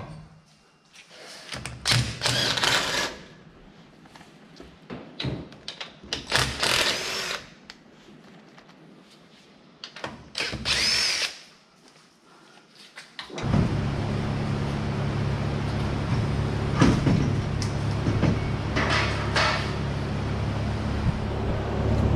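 Several short bursts of a power tool, used to take the gear out of a race car. About halfway through, a steady machine hum starts and keeps running.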